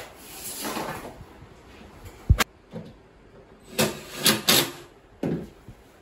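Particleboard bed-frame panels being handled and fitted during assembly: scraping and shifting, with one sharp wooden knock a little over two seconds in, the loudest sound, and a cluster of shorter knocks and rubs around four to five seconds in.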